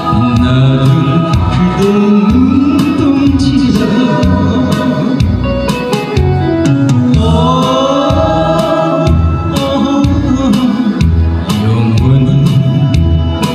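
A man singing a Korean trot song into a handheld microphone over instrumental accompaniment with a steady beat.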